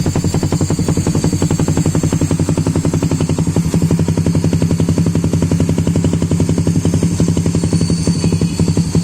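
Suzuki Raider 150 Fi's single-cylinder four-stroke engine idling steadily through an aftermarket Akrapovic-style open muffler, a fast, even train of exhaust pulses.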